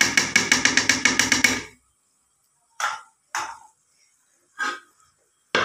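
Metal ladle knocking against an aluminium cooking pot: a quick run of about a dozen ringing taps in the first two seconds, then a few single knocks.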